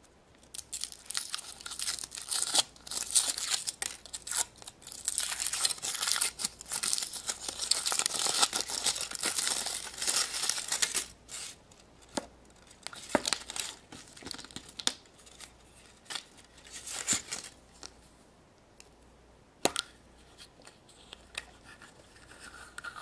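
Foil wrapper of a Kinder Surprise chocolate egg being peeled and crinkled off by hand: dense crackling for about the first ten seconds. After that come scattered sharp clicks and cracks as the chocolate egg and the plastic toy capsule inside it are opened.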